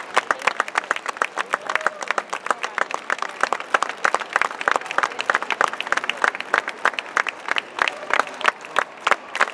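Spectators applauding, sharp separate claps coming several times a second without a break.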